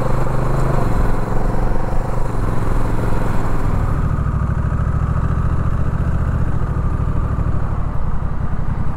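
Honda Rebel 1100's parallel-twin engine running as the bike slows to walking pace. Wind and road noise fade out about four seconds in, leaving the engine's low, evenly pulsing rumble.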